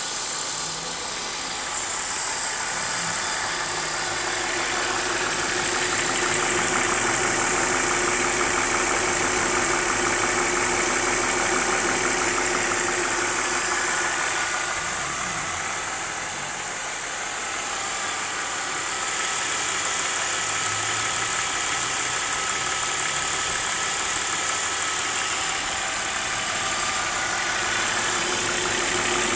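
BMW E46 3 Series engine idling steadily at operating temperature, with a fast ticking noise from the engine that comes on once it is warm.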